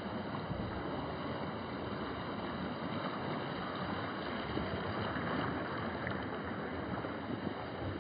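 Steady rushing noise of wind buffeting the microphone over the wash of surf, swelling a little about halfway through.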